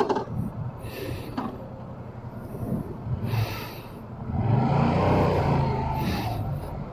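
A motor vehicle's engine running as a steady low rumble, with a few sharp clicks near the start. About four and a half seconds in it swells louder, with a pitch that bends, then eases off.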